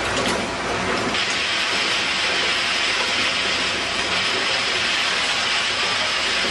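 Bottle filling and capping machine running: a steady mechanical clatter with a hiss that grows stronger about a second in and then holds steady.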